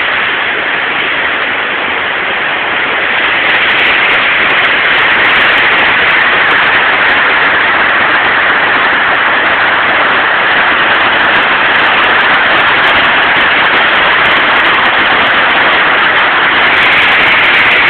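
Water pouring over a river dam's spillway and churning into whitewater below: a loud, steady rushing that grows a little louder a few seconds in.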